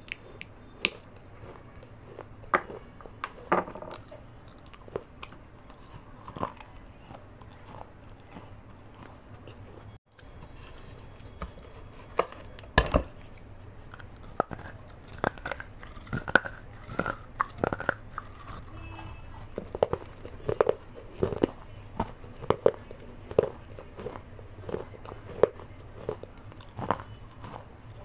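Close-miked biting and chewing of pieces of a baked clay pot (matka), a string of sharp, crisp crunches that come thicker in the second half. The sound cuts out briefly about ten seconds in.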